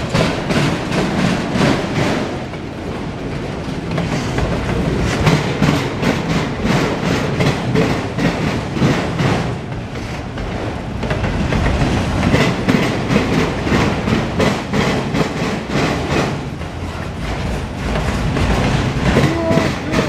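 CSX autorack freight cars rolling past, their steel wheels clacking over the rail joints in a rapid, steady rhythm over a continuous rumble.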